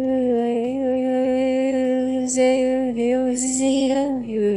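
A voice singing one long, held note with a slight waver and a few small steps in pitch, ending about four seconds in.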